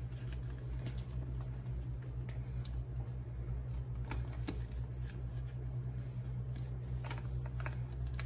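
Cardboard product packaging being scratched, rustled and pried at while someone tries to open a tightly sealed box, with a few sharp scrapes and clicks. A steady low hum runs underneath.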